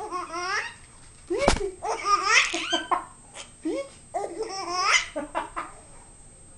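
A baby laughing in repeated peals with short pauses between them. A single thump about a second and a half in.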